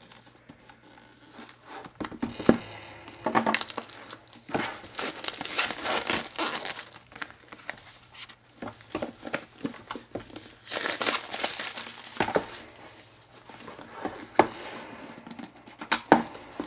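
iPad packaging crinkling and rustling as it is opened by hand, with small clicks and irregular rustles that come in two longer, louder stretches, a few seconds in and again past the middle.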